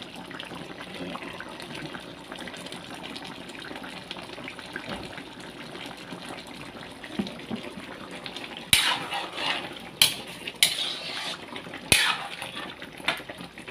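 A milky chicken stew simmering in a metal wok with a steady bubbling hiss. From about nine seconds in, a metal ladle scrapes and clanks against the wok several times as the stew is stirred.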